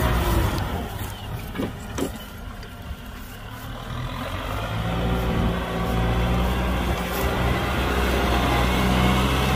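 Kubota M6040 tractor's four-cylinder diesel engine running under load while plowing. It drops back for a couple of seconds, then builds up to a steady, stronger run from about halfway in.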